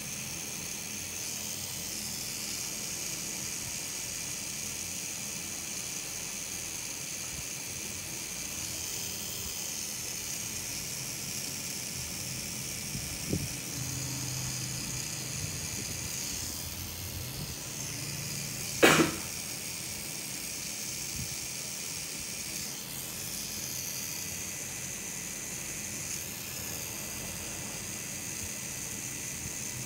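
Rotary tattoo machine running steadily as the needle packs yellow ink into the skin, a constant high motor hum. A single sharp click sounds about two-thirds of the way through.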